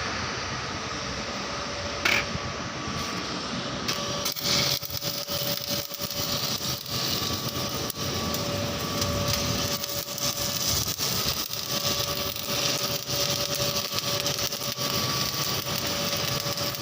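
Arc welding on a boiler waterwall tube joint: from about four seconds in, the arc crackles irregularly over a steady machine hum.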